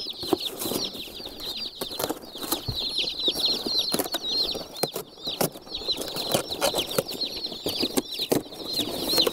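Dense, continuous peeping of a boxful of day-old Freedom Ranger chicks, many short falling chirps overlapping, with scattered clicks and scrapes as the cardboard shipping box is cut open.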